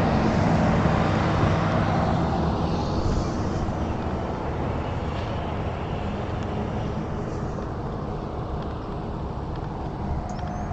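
Road traffic: a vehicle driving past, its engine hum and tyre noise loudest at first and fading away over several seconds.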